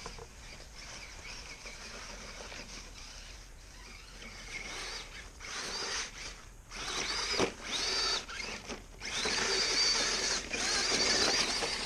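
Axial SCX10 Deadbolt RC crawler's electric motor and gears whining as it drives in bursts; the high whine gets louder and steadier about halfway through.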